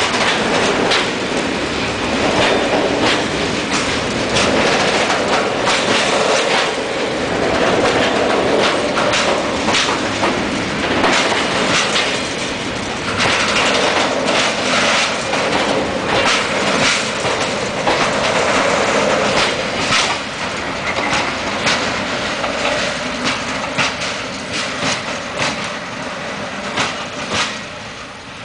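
Freight train of tank wagons rolling past: a steady rumble with rapid, irregular knocks of the wheels over rail joints, getting quieter over the last several seconds as the end of the train goes by.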